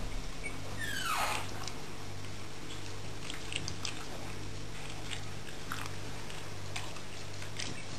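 Beagle chewing and crunching food, with scattered sharp clicks, over a steady low hum. A brief falling squeal about a second in.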